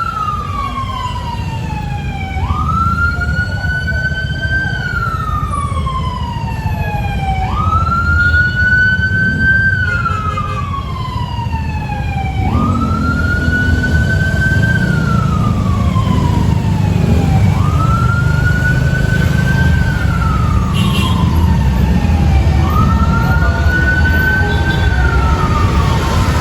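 Fire truck siren wailing, each cycle jumping up sharply in pitch, holding, then sliding down, repeating about every five seconds. A steady low rumble runs underneath.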